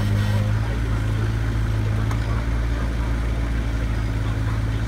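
Mini excavator's diesel engine running at a steady speed while the arm and bucket are worked into a dirt pile, an even low hum.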